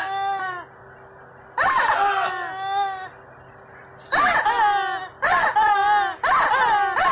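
Yellow rubber chickens screaming: a run of about five long squeals that rise and fall in pitch. A pause follows the first two, and the later ones come close together, one about every second.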